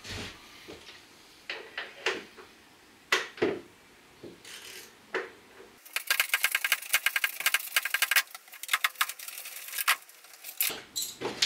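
A few scattered metallic knocks of a hand tool, then about five seconds of rapid ratchet clicking as a socket ratchet spins out a loosened bolt holding a cargo tie-down point; the clicking stops near the end.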